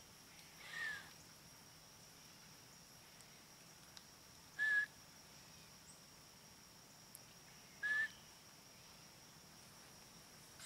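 Three short, high whistled notes, a few seconds apart. The first slides down in pitch and the other two hold one pitch, over a faint steady high hiss.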